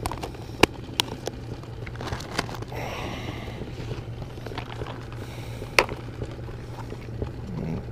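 Plastic tackle boxes being handled, their lids snapping shut with a few sharp clicks and a short rustle of plastic, over a steady low hum.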